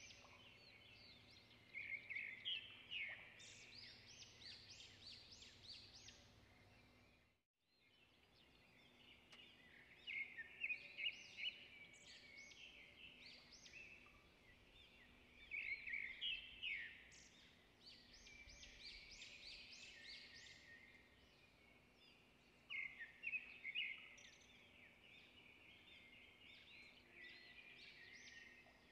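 Small birds chirping and twittering in short bursts every few seconds over a faint hiss. The sound cuts out briefly about seven seconds in.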